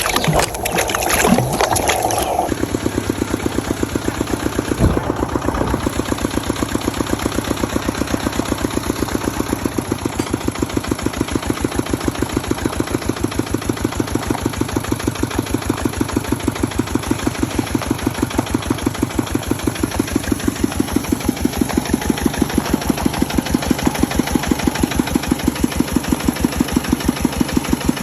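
Engine chugging from a homemade RC dump truck, an even, rapid pulse like a diesel at idle. It starts about two seconds in and gets a little louder past the middle.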